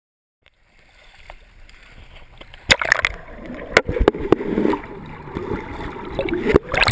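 Water churned by a swimmer's strokes, splashing and bubbling, picked up by a camera at and under the surface. It fades in after a brief silence, with sharp splashes near three seconds, around four seconds and just before the end.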